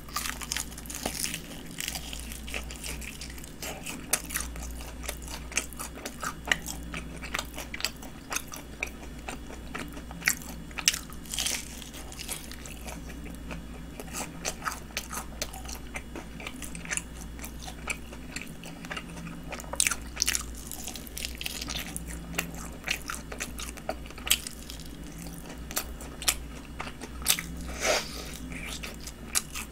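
Crispy honey-glazed fried chicken being bitten and chewed: irregular crunches and wet chewing, with a few louder bites spread through.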